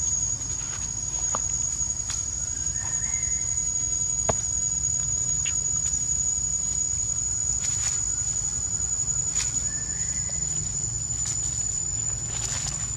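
Steady high-pitched insect drone held on one tone throughout, with scattered short rustles and clicks of dry leaves as monkeys scuffle on the ground.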